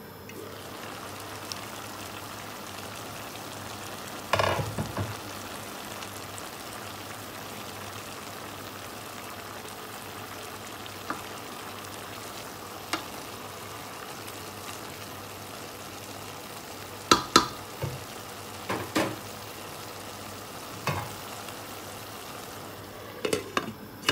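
Shredded cabbage and meat sizzling in a steel pot with a steady hiss, while a wooden spoon stirs and knocks against the pot several times. A clatter near the end as the glass lid goes back on.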